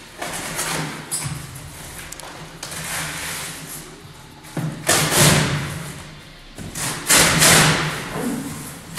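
Packaging on a large refrigerator being handled and pulled open, with thuds and two longer noisy swells about five and seven seconds in.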